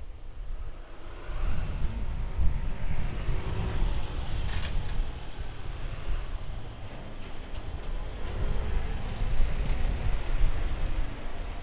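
Street traffic noise with a heavy low rumble, and a brief sharp noise about halfway through.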